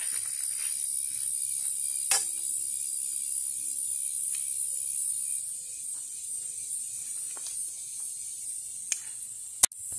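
Insects buzzing steadily at a high pitch, with a faint regular pulsing above, easing a little about halfway through. A few sharp clicks cut through, one about two seconds in and two near the end, the last the loudest.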